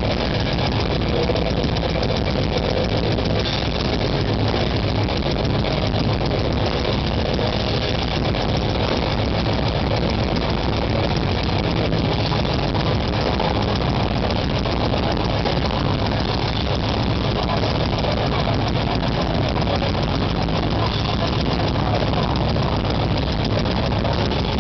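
Metalcore band playing live, with distorted guitars, bass and drums, overloaded on a camera microphone into a dense, steady wall of noise.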